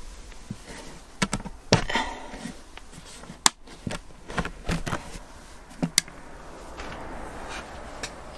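Several sharp clicks and knocks as the plastic latches of a van's roof skylight are undone and the hatch is pushed open from below, the sharpest about three and a half and six seconds in.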